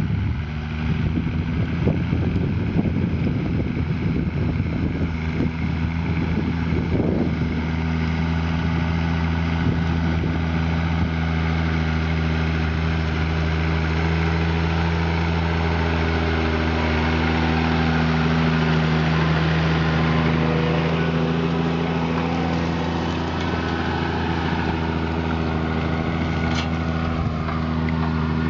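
Diesel engine of a farm machine running steadily at constant speed. Rough noise lies over it for the first seven seconds or so.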